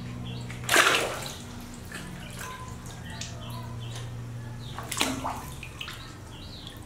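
Water splashing in a plastic basin as a baby macaque is dipped and lifted out during its bath: two sudden splashes, about a second in and again about five seconds in.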